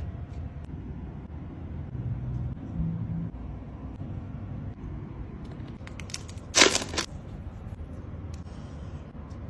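Packaging being handled in an unboxing: a steady low background rumble, a few small clicks, then one short loud crackle about two-thirds of the way through.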